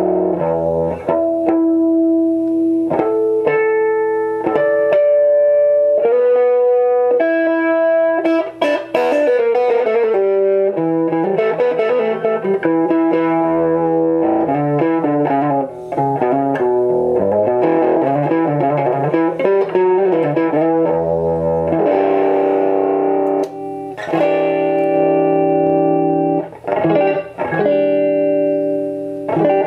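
Telecaster-style electric guitar played through a Marshall JCM2000 DSL100 valve amp head under a play test: a slow phrase of held single notes, then faster runs, then ringing chords in the last several seconds.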